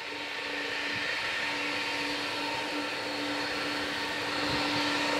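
Boeing 777-200 airliner's jet engines whining steadily as it taxis, several steady tones over a rushing hiss, growing slowly louder.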